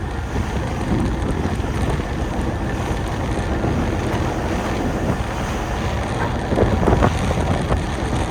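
Wind buffeting the microphone on a fishing boat at sea, over a steady rush of water, with a few louder bumps about six to seven seconds in.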